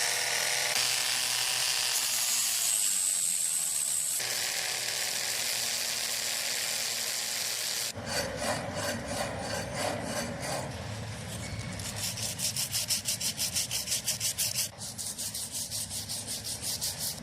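Hand-worked abrasive rubbing on a small metal model part. It starts as a steady scraping with a couple of abrupt changes, then from about halfway becomes quick, even back-and-forth strokes, about four to five a second.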